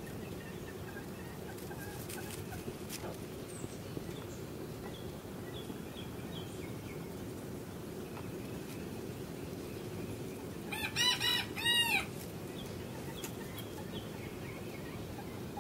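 A Serama bantam cockerel crows once about two-thirds of the way through: a short, high crow of a few rising-and-falling notes lasting about a second. Faint soft clucks and chirps come and go before and after it, over a steady low background noise.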